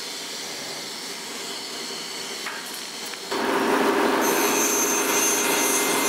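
Steady workshop noise, then from about three seconds in a bandsaw running and cutting a small piece of wood: a steady motor hum, with a high whine over it from about four seconds in.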